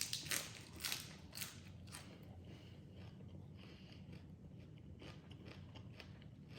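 Close-up crunching and chewing of a mouthful of crunchy salad: a few sharp crunches in the first second or so, then quieter, intermittent chewing.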